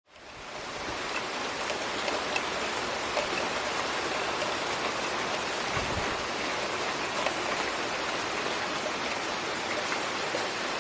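Steady rain falling, with scattered drops pattering, fading in over the first second.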